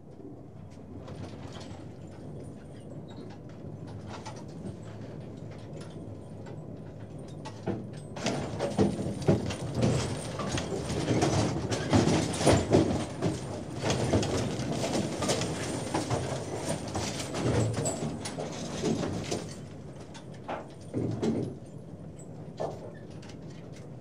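Trawl gear being lowered: a steady mechanical rumble with knocks and clanks. It grows louder and busier about a third of the way in, then eases off near the end to a few separate knocks.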